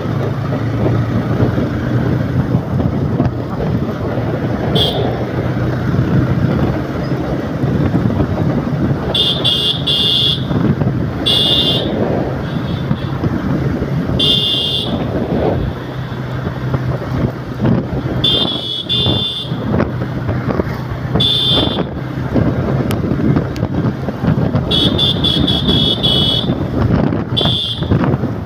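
Riding in a moving vehicle on a busy street: steady low engine and road rumble with wind, and short bursts of a high-pitched horn beeping again and again, about eight times.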